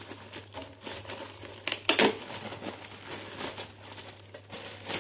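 Clear plastic bag crinkling and rustling in irregular crackles as it is pulled off a network video recorder, with a louder burst of crinkling about two seconds in.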